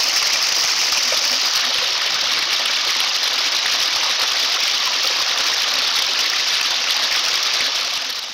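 Small moorland stream rushing and splashing steadily over mossy rocks, loud and close; it fades out near the end.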